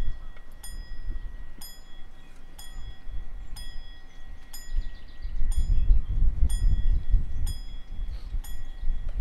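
Railway level-crossing warning bell striking about once a second, each stroke ringing briefly, over a low rumble that swells in the middle.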